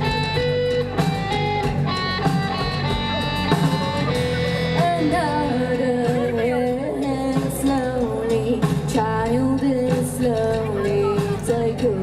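Live rock band playing, guitar and a melodic line over a steady bass. Held, stepped notes give way after about four seconds to a bending, sliding melody.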